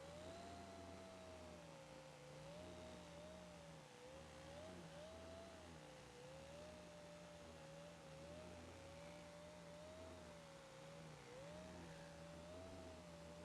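Multicopter's electric motors and propellers humming steadily as it hovers in Loiter mode. The pitch keeps rising and falling a little as the motor speeds change to hold position in the wind.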